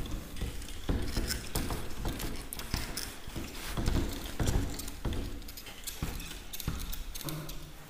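Whiteboard duster rubbing and wiping across a whiteboard, an irregular run of scrubbing strokes with soft knocks and taps as the writing is erased.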